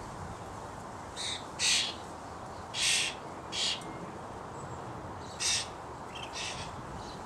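Common starlings calling at a feeder: a run of six short, harsh, rasping calls, each under half a second, typical of a fledgling begging to be fed by its parent. A steady faint hiss lies underneath.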